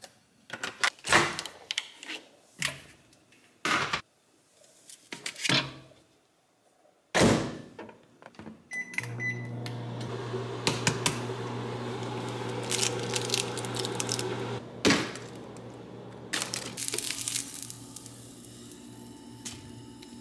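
Kitchen clatter of dishes and utensils, clicks and knocks, then a short beep about nine seconds in and the steady hum of a microwave oven running, with a hiss over it.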